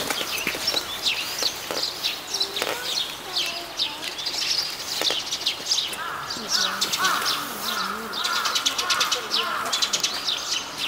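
Many small birds chirping in quick, high calls throughout. From about six seconds in, people's voices talk in the background.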